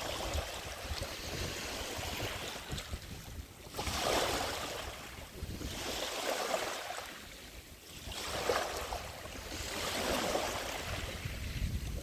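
Small Baltic Sea waves washing onto a pebbly sand beach, the surf swelling and fading every couple of seconds.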